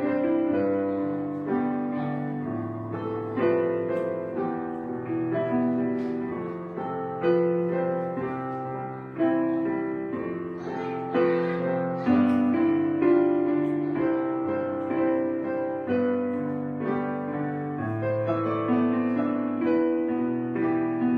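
Background music: piano playing slow chords and melody notes.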